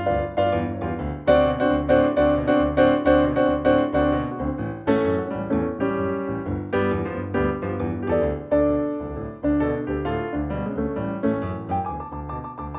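Boogie-woogie piano played on a Roland RD-300NX digital stage piano: a steady rolling bass line under fast repeated right-hand chords and runs.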